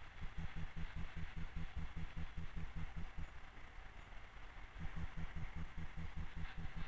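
Low, even machine throb of about six beats a second under a steady hiss and a faint high whine: the background noise heard in the cab of a tram standing still.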